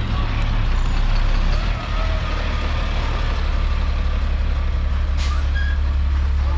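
A truck engine running steadily with a low drone, with one short sharp noise about five seconds in.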